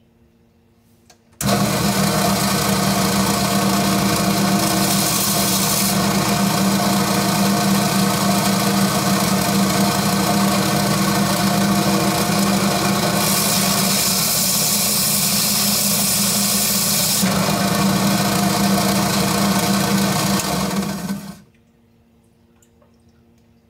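An electric coral-cutting saw starts about a second and a half in and runs steadily with a motor hum, sawing through coral skeleton to split off frags. Its sound turns hissier twice during the cut, and it cuts off suddenly near the end.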